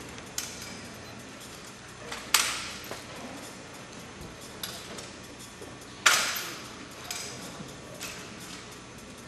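Springfield 1903-A3 drill rifle with fixed bayonet being spun and caught: lighter clicks and knocks of the rifle's wood and metal, with two loud sharp smacks about two and six seconds in that echo through the gymnasium.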